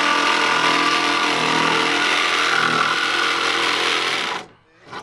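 Cordless jigsaw running at a steady speed as its blade cuts a stringer notch into a bulkhead panel. The cut stops abruptly near the end.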